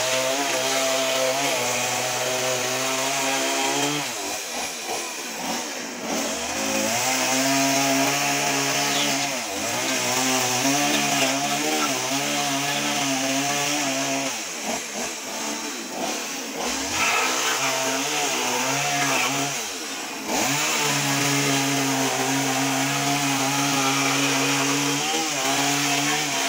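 Stihl MS 180 two-stroke chainsaw cutting through jatobá hardwood, run mostly at high revs. The engine drops off and climbs back up several times, around 4 s, 9 s, 15 s and 20 s in.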